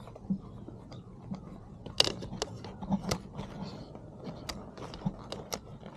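Irregular sharp clicks and crunching knocks, the loudest about two and three seconds in.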